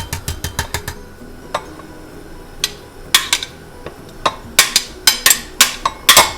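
Lemon zesting and kitchen utensil handling: a quick run of short scraping strokes, about six a second, in the first second, then a dozen or so separate sharp clinks and taps of utensils against a bowl.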